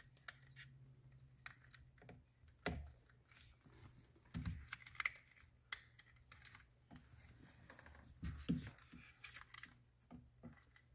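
Faint scattered clicks and taps of hands handling plastic wiring connectors and a carbon fiber trim piece on a steering wheel, with a few dull knocks.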